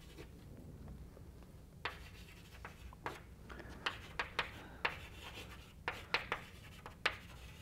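Chalk writing on a blackboard: a faint run of short, irregular taps and scratches as words are written, beginning about two seconds in.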